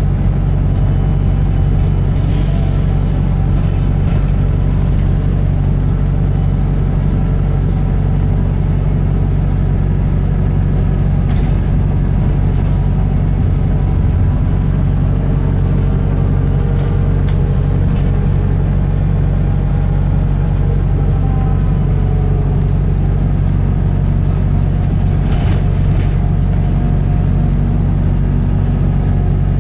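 Steady low drone of a New Bus for London's hybrid drivetrain heard from inside the passenger saloon, with a faint whine rising and falling midway. A few light clicks and rattles come through now and then.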